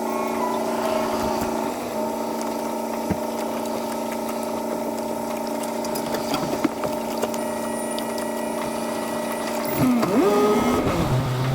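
A steady mechanical hum of several held tones, shifting slightly about two seconds in, with a gliding pitch sweep near the end, after which a lower hum takes over.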